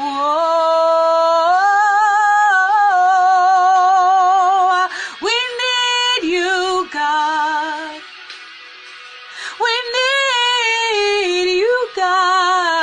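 A woman singing a worship song, holding long wordless notes with vibrato and sliding between pitches, with a short quieter pause about eight seconds in.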